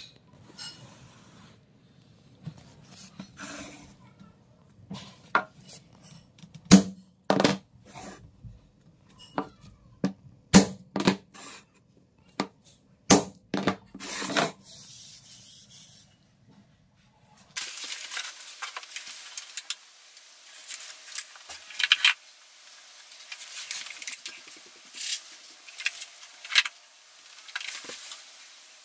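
Vinyl floor planks being handled by hand: a few sharp knocks and clicks over a low hum, then, past the middle, a long stretch of scraping and rubbing dotted with quick clicks.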